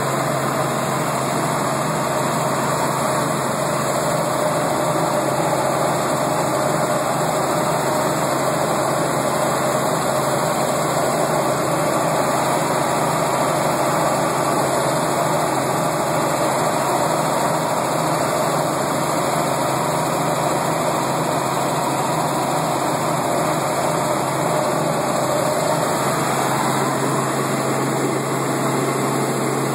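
Helicopter engine and rotor noise, a loud steady drone with a constant low hum and no change in pitch.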